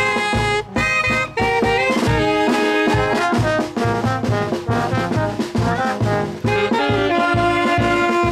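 Brass band playing live: trombones, tuba and saxophones carry the tune over a steady bass-drum beat with cymbal crashes.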